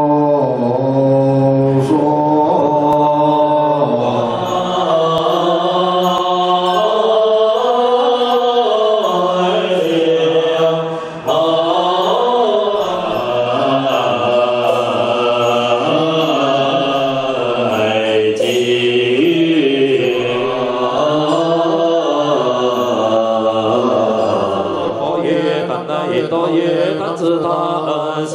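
Chinese Buddhist liturgical chanting: many voices sing slow, drawn-out melodic lines in unison, with long held notes that rise and fall.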